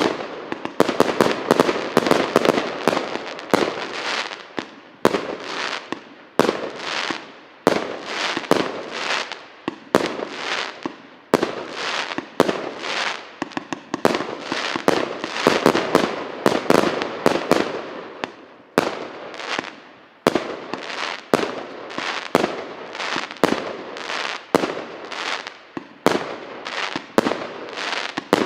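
A 100-shot consumer firework cake (Stolnik EC768) firing in rapid succession: a steady run of sharp shots and bursts, about two a second, over a continuous noisy wash between them.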